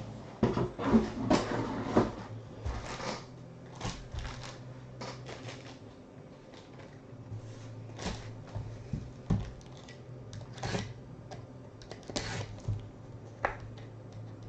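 Trading-card box packaging being handled and opened: a burst of crinkling and rustling in the first couple of seconds, then scattered small clicks, taps and rustles of cardboard and cards. A low steady hum runs underneath.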